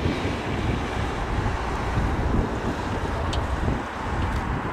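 RC-135 Rivet Joint's four CFM56 (F108) turbofan jet engines on landing approach, a steady low rumble, with wind buffeting the microphone.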